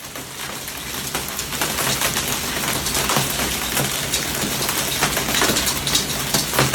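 Hailstones pelting down hard, a dense, continuous clatter of countless impacts on hard surfaces, growing louder over the first second or so.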